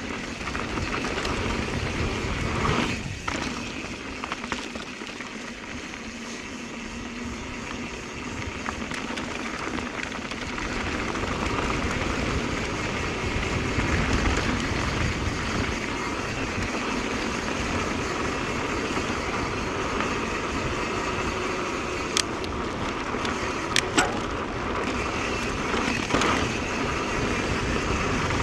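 Mountain bike rolling along a dirt trail: steady tyre and rattling noise, with two sharp clicks near the end.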